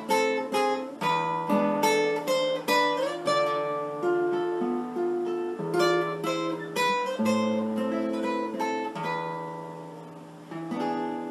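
Background music on acoustic guitar: plucked notes and chords, each ringing and dying away, with quick runs of notes near the start and again about six seconds in. It fades near the end, and a new chord comes in.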